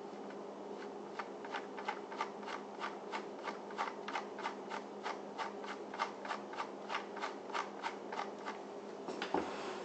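Arriflex 16S 16mm film camera's mechanism being turned by hand, its shutter, mirror and film-pulldown parts clicking in an even rhythm of about three clicks a second, with one more click near the end.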